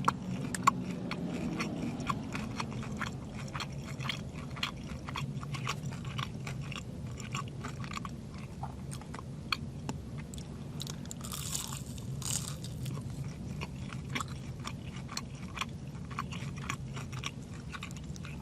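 Close-up chewing of a crispy Chicken McNugget: many small crunches and mouth clicks, with a steady low hum underneath.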